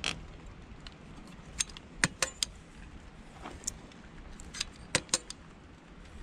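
Caulking gun laying construction adhesive, its metal trigger and ratchet giving short, sharp clicks at an irregular pace.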